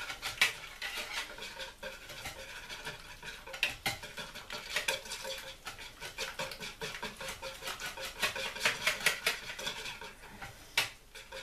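Hand whisk beating whipping cream and flour stiff and foamy in a plastic bowl: quick, rhythmic clicking and swishing strokes against the bowl, busiest near the end.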